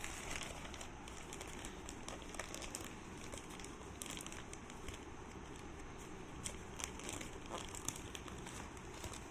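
A box being unboxed: its packaging handled and opened with irregular crinkling and crackling and scattered sharp little clicks over a steady low hiss.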